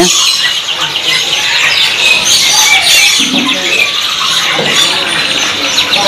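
Many caged birds chirping and squealing at once, a continuous high-pitched chatter of rapid, overlapping calls.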